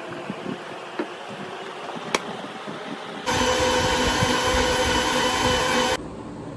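Electric mixer grinder running steadily with a whine, blending a drink in its plastic jar; it starts abruptly about three seconds in and cuts off about three seconds later. Before it, a few light knocks and one sharp click.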